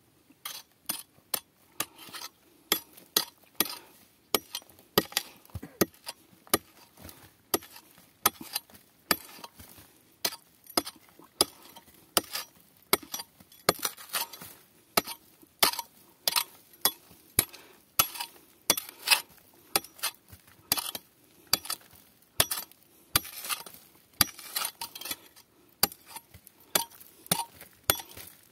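Steel rock hammer striking hard pegmatite rock again and again, in sharp ringing clinks at an irregular pace of about two or three a second.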